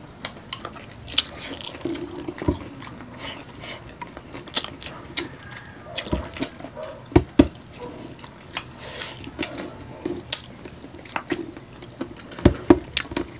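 Close-miked wet eating sounds from chewing and sucking on soft, sauce-coated adobo chicken feet: a run of irregular sharp clicks and smacks, a few louder ones about seven and twelve seconds in.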